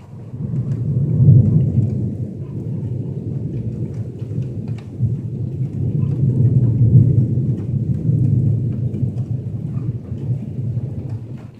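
Long rolling thunder rumble that swells about a second in, builds again midway, and eases off near the end, with scattered ticks of raindrops.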